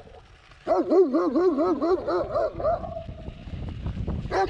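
Dog barking in a rapid string of about ten quick, high barks over two seconds, then one more bark near the end. A low rumble of wind and riding noise runs under the barks.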